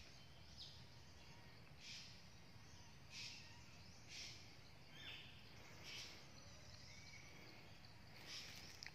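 Near silence: faint outdoor ambience with soft, short rustles about once a second and a few faint chirps.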